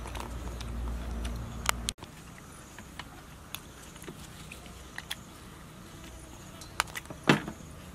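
Scattered small clicks and taps of bowls, a metal tray and handled food at a meal, over a low steady rumble that stops abruptly about two seconds in; one louder knock near the end.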